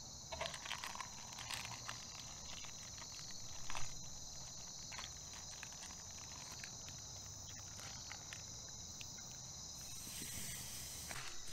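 Steady night chorus of crickets, two high shrill trills running throughout. Scattered small clicks and rustles of cookware and dry leaves being handled, with a brief hiss about ten seconds in.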